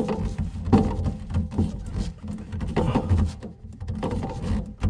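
Irregular clicks, knocks and scrapes of a plastic faucet mounting nut being snugged up by hand under a kitchen sink.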